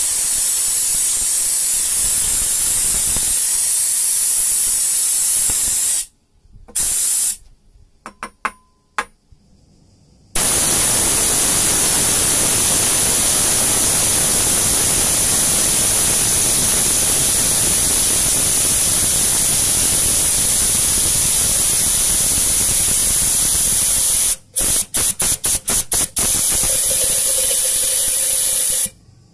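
Compressed air hissing loudly through a homemade copper-tube venturi pump on an air blow gun, drawing water up from a jar and spraying it as mist. The air cuts off about six seconds in with one short blast and a few faint clicks, then comes back steady. Later it is pulsed in about six quick bursts before running on and stopping just before the end.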